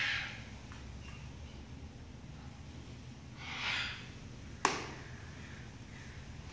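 Armadillo snorting: two short breathy huffs, one at the start and another about three and a half seconds in, with a single sharp tap just after the second.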